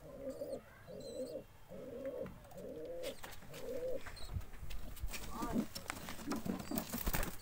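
Domestic pigeon cooing, a run of about five low coos over the first four seconds, followed by scattered clicks and knocks.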